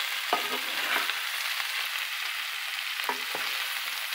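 Beef and vegetable stir-fry sizzling steadily in a nonstick frying pan as a wooden spoon stirs it, with a few short scrapes of the spoon against the pan, about a third of a second in, near one second and around three seconds in.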